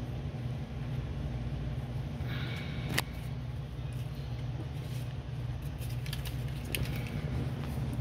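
A steady low rumble, like a running engine or machinery, with a brief hiss and then a single sharp click about three seconds in.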